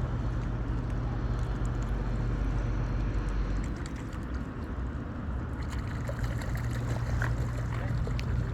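Water trickling and sloshing over a steady low rumble, with a few faint short sounds near the end.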